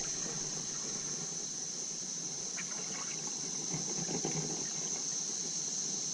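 Creek water trickling and lapping around a kayak, with a few faint knocks, over a steady high-pitched hiss.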